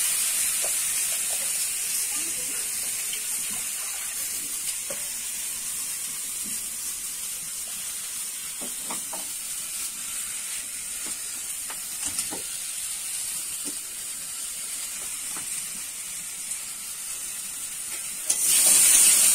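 Large turmeric-coated potato chunks frying in oil in a metal karahi over a wood fire: a steady sizzle that fades over the first few seconds, with a few light scattered ticks. The sizzle grows loud again near the end as the potatoes are stirred with a spatula.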